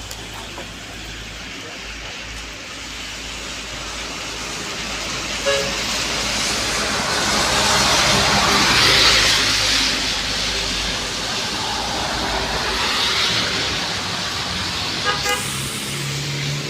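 A large road vehicle passes by: its road noise swells to a peak about eight to nine seconds in, then fades. There is a short horn toot about five seconds in and another near the end.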